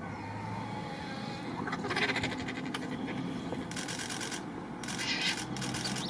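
Vultures squabbling over a carcass: three harsh, rasping hisses, each under a second, over a low steady hum.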